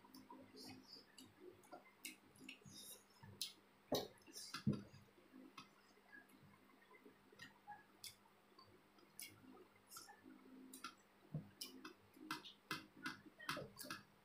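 Eating sounds from hand-eaten rice, curry and fritters: irregular small wet mouth clicks and smacks of chewing, with a couple of louder clicks about four seconds in.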